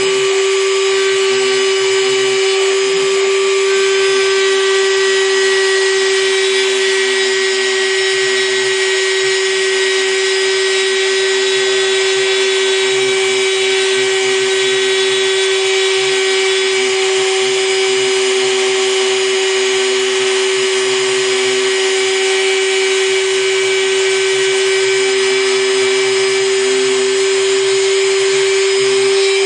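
Takima router running as the spindle of a small CNC mill, a 0.8 mm bit engraving copper-clad PCB; a steady high motor whine with cutting noise, unchanging throughout.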